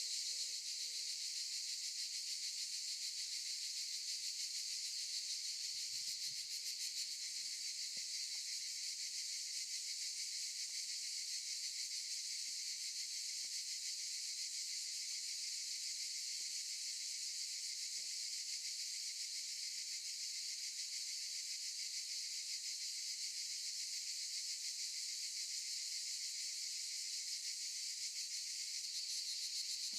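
Cicadas in chorus: a steady, dense high-pitched buzz that holds at an even level without a break.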